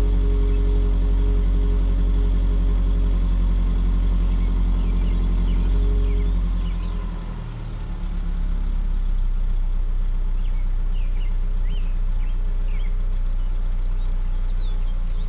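2009 Subaru Outback's boxer engine idling through a new stainless steel cat-back exhaust during a cold start. About seven seconds in, the fast idle drops and the exhaust note goes lower and quieter as the engine settles down.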